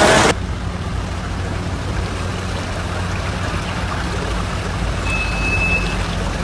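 Rain and floodwater running around cars, over a steady low hum of vehicle engines. A louder rush of water cuts off just after the start, and a short high beep sounds about five seconds in.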